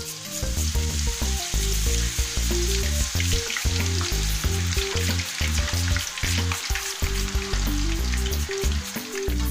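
Shredded potato sizzling in hot oil in a wok: steady deep-frying hiss with many small crackles as fresh strands drop into the oil.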